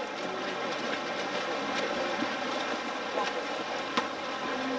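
Water splashing and churning in a pool as players swim and fight for position, with a couple of sharp slaps and faint voices in the background.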